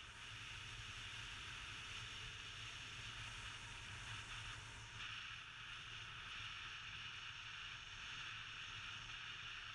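Steady rushing wind and road noise on a camera travelling along a paved road.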